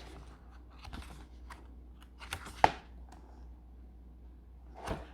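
Light clicks and taps of handling close to the microphone, with one sharp click about two and a half seconds in and a duller knock near the end.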